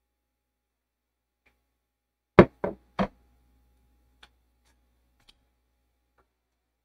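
A wooden office door being pulled shut by a slow DIY motorised door closer: a faint low motor hum, then three sharp knocks in quick succession about two and a half seconds in as the door meets its frame, followed by a couple of faint ticks.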